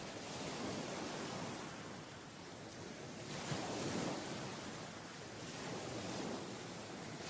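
Wind gusting over the microphone: a rushing noise that swells and eases every couple of seconds, loudest about four seconds in.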